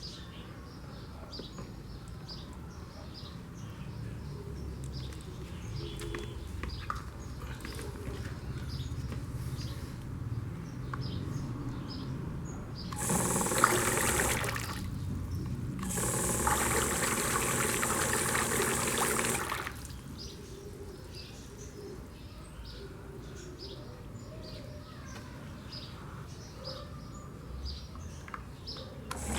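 Water pouring in two bursts midway through, a short one of about a second and a half and a longer one of about three and a half seconds. Birds chirp in the background throughout.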